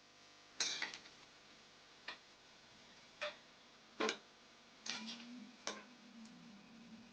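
Kitchen utensils clicking and knocking: about six sharp, separate taps, roughly a second apart.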